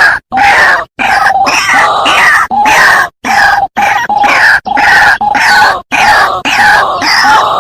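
White-breasted waterhen (ruak-ruak) calling loudly over and over, a rapid series of harsh, croaking calls, broken by several sudden short gaps.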